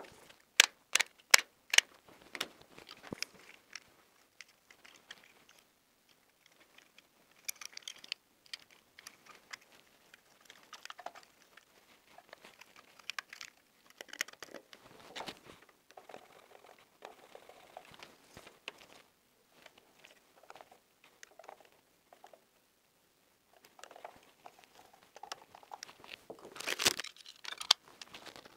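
Handling noise from fitting a KNX push-button insert into a flush-mounted wall box: wires rustling and crinkling as they are pushed in, with plastic and metal scraping and clicking. A quick run of about five sharp clicks comes near the start, and a louder burst of scraping comes near the end.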